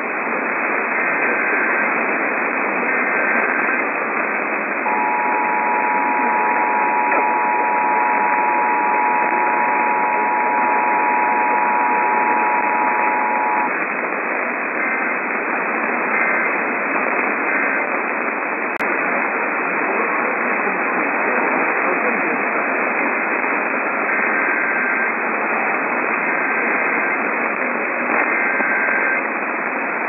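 Emergency Alert System tones received on AM radio under heavy static. It opens with the last two SAME data bursts of a Required Weekly Test header, then the two-tone attention signal, held for about nine seconds. Three short end-of-message bursts follow, then a stretch of static with one click, then three more data bursts that open the header of the next alert.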